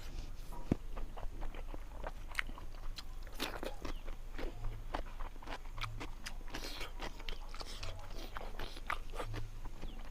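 A person eating fish curry close to the microphone: steady chewing and crunching, with many short wet mouth clicks and smacks throughout.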